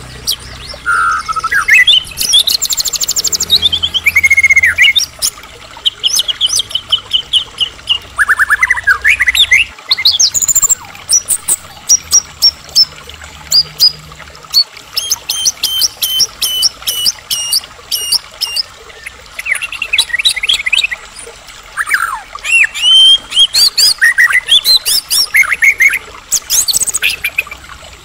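White-rumped shama (murai batu) in full song: a long, varied string of loud whistled phrases. The song mixes fast rising trills, swooping glides and runs of evenly repeated notes, with short pauses between phrases.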